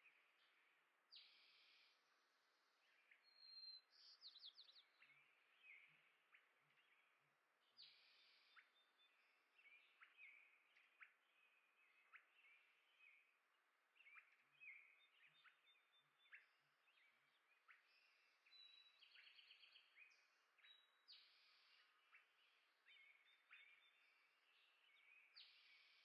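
Small songbirds chirping and calling at seed feeders: many short, high chirps and brief chattering runs, irregular and overlapping, at a faint level.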